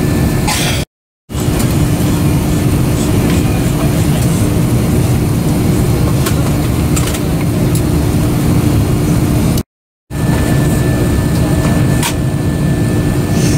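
Steady low cabin hum inside an Airbus A330-200 waiting at the gate with its engines not yet running: the aircraft's ventilation and air-conditioning noise, with a faint steady tone over it and a few light clicks. It drops out to silence for a fraction of a second twice, about a second in and near ten seconds in.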